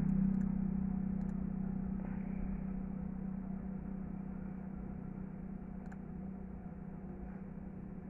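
Steady low hum with a rumbling background noise that slowly fades, and a few faint mouse clicks.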